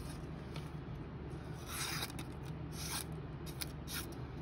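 Freshly stropped folding knife blade slicing through a sheet of paper in a sharpness test: a few short, dry slicing swishes, the longest and loudest about two seconds in.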